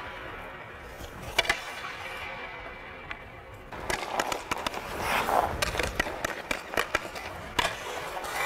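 Hockey skate blades scraping and carving on the ice, with sharp clicks of the stick blade on the puck. It gets busier and louder a little under halfway through.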